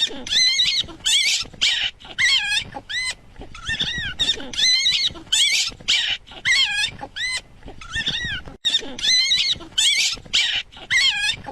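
A small animal giving a long run of short, high squealing calls, each rising and falling in pitch, about two a second.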